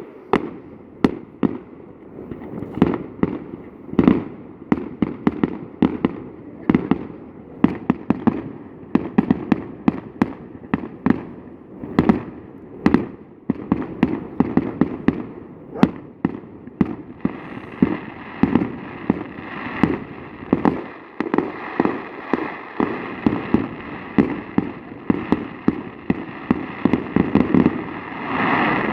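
Fireworks display: a rapid, continuous barrage of sharp bangs, several a second, each with a short echo. Past the middle, a steady hiss joins in under the bangs and swells near the end.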